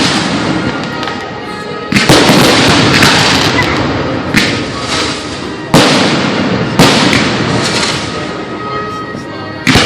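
Aerial fireworks bursting: five sharp bangs, about two seconds in, near four and a half, near six, near seven and just before the end. Each trails off over a second or two.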